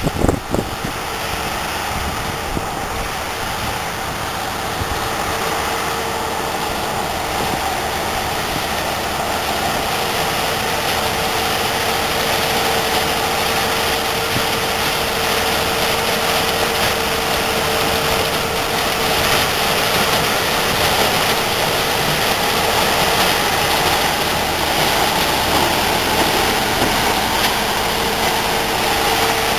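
Claas Lexion 630 combine harvester running under load while harvesting sunflowers: a steady engine and threshing drone with a constant whine over it, growing gradually louder as the machine comes closer.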